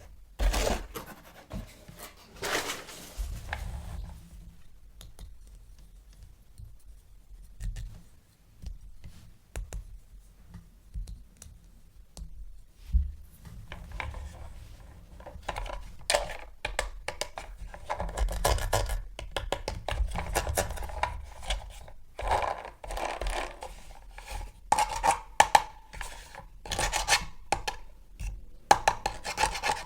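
Hands handling plastic toys and packaging, with irregular scratching, rubbing and small clicks. It is sparse at first, with one knock just under halfway, and busier through the second half.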